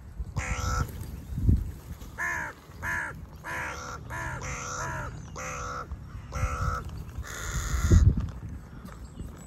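Crows cawing: a run of about nine separate caws, some short, the last one longer. Two low thumps sound underneath, one about a second and a half in and a louder one near the end.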